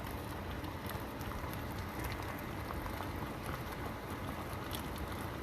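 Pot of jackfruit simmering in brown sugar syrup: a steady bubbling hiss with many small pops.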